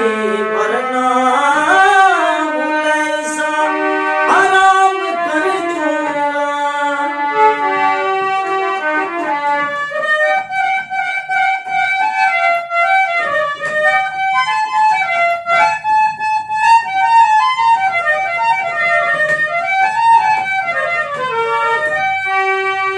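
Harmonium playing a stepped melodic interlude of a Haryanvi ragni. During the first several seconds a man's held, sliding sung notes sound over it before the harmonium carries on alone.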